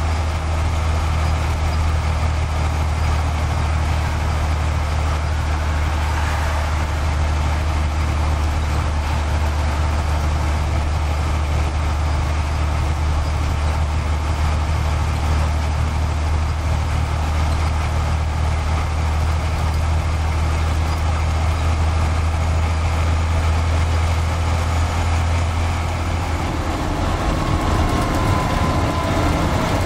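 Heavy lorry's diesel engine droning steadily at cruising speed, with road and wind noise, heard from inside the cab of a 1977 Volvo F88. The deep drone drops away and the pitch shifts about 26 seconds in.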